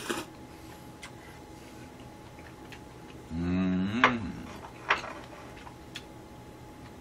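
Slurping of sukiyaki noodles and broth from a small bowl at the start, a short hummed voice sound about halfway through, and a few sharp clicks of chopsticks against a ceramic bowl and plate.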